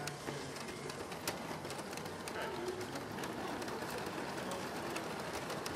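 A LEGO train running on plastic track, with irregular sharp clicks as it rolls past, over background chatter of voices in a large hall.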